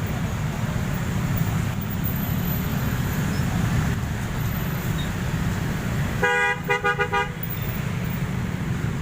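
A bus's telolet musical horn plays a quick run of short notes lasting just over a second, about six seconds in. Underneath is the steady low rumble of bus engines and traffic.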